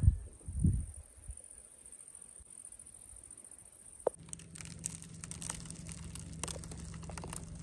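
Rough lumps of natural chalk clicking and grating against one another in a hand: a dry, fine crackle that starts about four seconds in and keeps going. Under it runs a steady high buzz of insects, and there are a few low thumps at the start.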